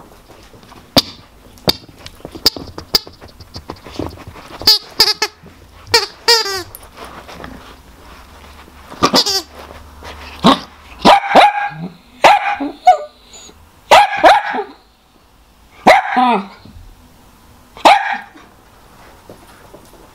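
Miniature dachshund barking in short, sharp barks at a rubber chicken toy she is afraid of. The barks come sparsely at first, then every second or two through the second half. This is fearful alarm barking.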